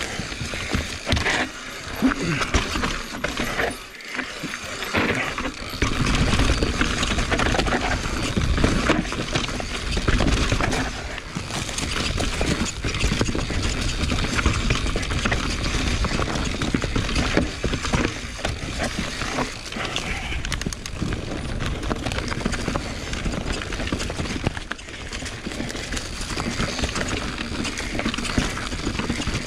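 Mountain bike clattering over a rocky trail: irregular knocks and rattles from the tyres on rock, the chain and the frame. A low rumble swells about six seconds in.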